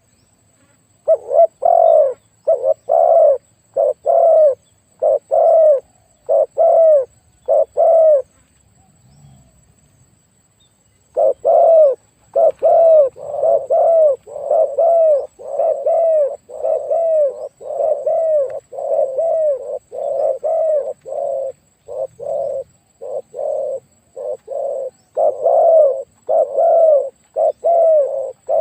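Spotted dove cooing in long runs of short, low, rounded coos, several a second. The cooing breaks off for about three seconds near a third of the way in, then resumes in a dense, unbroken series.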